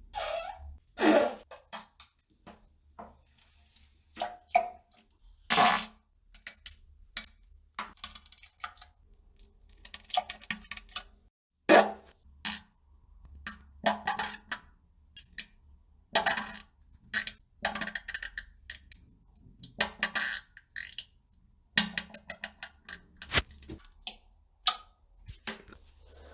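A long, irregular series of fart and pooping sounds: many short bursts of varying length, some brief and sharp, others drawn out, following one another with short gaps.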